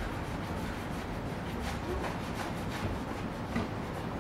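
Microfibre cloth rubbing a fine cutting compound (blemish remover) over a car's painted panel in repeated back-and-forth polishing strokes, a few soft strokes a second.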